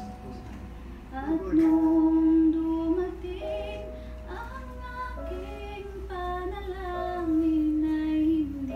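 A woman singing a slow Tagalog love song over instrumental backing music, holding long notes and sliding between pitches.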